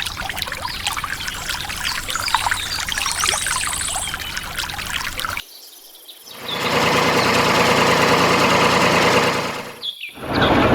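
Water pouring and trickling, splashy, for about five seconds, then stopping abruptly. After a short break, a steady louder machine-like running noise starts and briefly drops out near the end.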